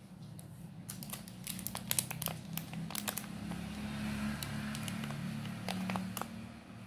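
Crinkling and crackling of a clear plastic cake tray and wrapper being handled, many sharp irregular clicks, over a low steady hum.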